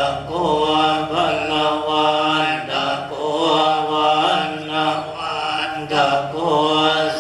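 Buddhist chanting, a steady droning chant on a few held pitches with small glides between them. It dips briefly every second or two.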